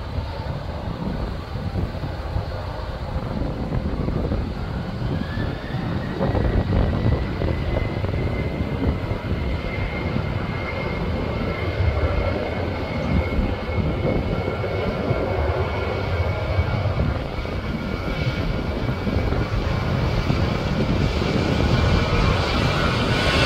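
Boeing 737-800's CFM56 turbofan engines spooling up for a takeoff roll, with a whine that rises and then holds steady over a broad rumble. The sound grows louder as the jet rolls closer.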